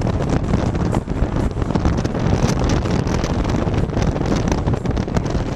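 Wind buffeting the camera's microphone: a loud, steady rush heaviest in the low end, broken by frequent short pops.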